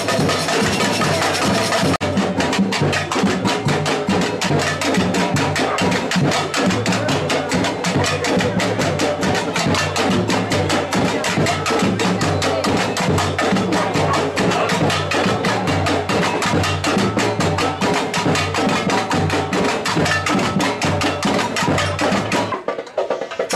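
Batucada samba percussion band playing a fast, driving rhythm of dense, evenly spaced drum strokes. The deep drums cut out near the end.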